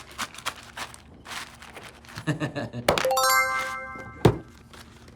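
Plastic packaging crinkling, then a bright bell-like chime about three seconds in that rings out for about a second, followed by a single sharp thump.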